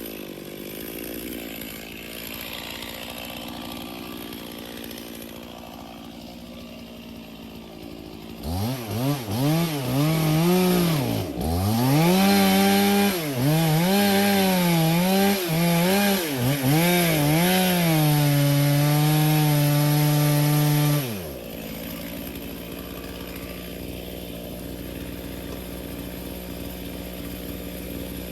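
Stihl chainsaw idling, then revved up and down in a series of throttle blips and held at full throttle for a few seconds before dropping suddenly back to a steady idle, as when limbing and bucking a felled cedar.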